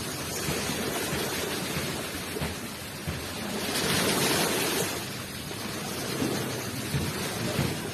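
Ocean waves washing onto the shore, a steady rushing that swells louder for about a second near the middle as a wave breaks.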